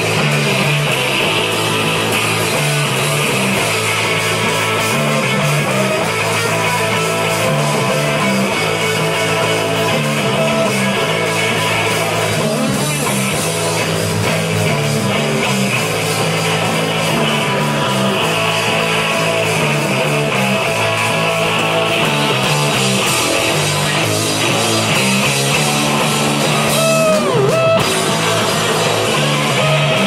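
Live rock band playing loud: electric guitar over a drum kit with cymbals, with a short falling glide in pitch near the end.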